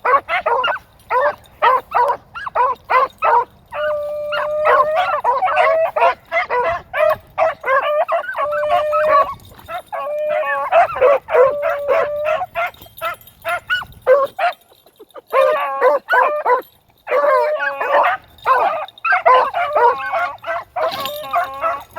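Several beagles baying as they run a rabbit's track: fast strings of short chop barks mixed with longer, drawn-out bawls. Two brief lulls break the middle.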